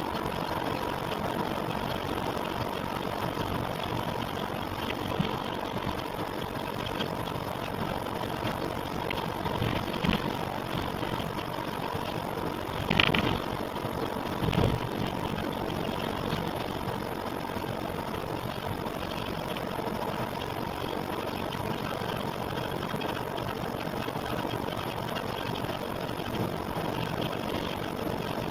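Engine idling steadily with a faint steady whine, broken by a few separate knocks about 5, 10, 13 and 15 seconds in, the one near 13 seconds the loudest; the sound is put forward as an abnormal noise.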